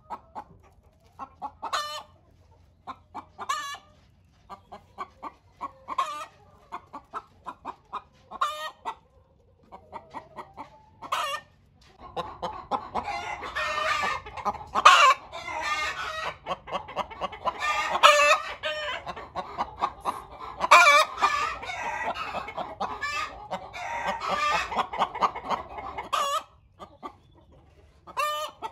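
A flock of chickens clucking and calling. At first the clucks come a few at a time; partway through, many birds call at once and it gets louder, then it thins out again near the end.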